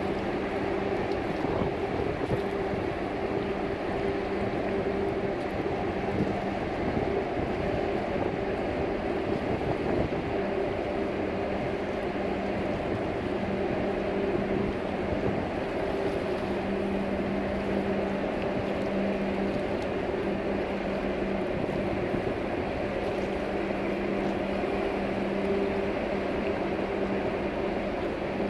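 Steady hum and rumble of a passing Ever Golden-class container ship, with a low droning tone that fades in and out.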